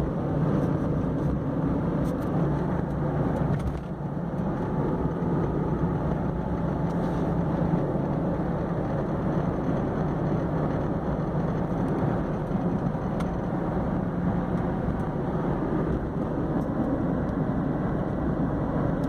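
Honda Insight driving in gear, steady engine and road noise. Carried in it is the grinding, squeaking whir from the front engine bay that the owner likens to a cheap computer case fan. The noise comes in between 1500 and 2500 rpm and stops in neutral.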